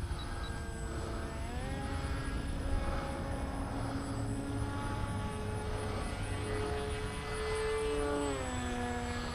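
Brushless 3536 electric motor and propeller of a heavy foam FPV flying wing in flight. Its pitch climbs about a second and a half in as the throttle comes up, holds, then drops back near the end, over a low rumble.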